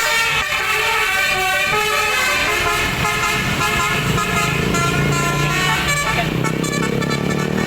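Bus telolet horn, a multi-trumpet air horn, playing a quick melody of high tones that step up and down in pitch; a low drone joins about three seconds in.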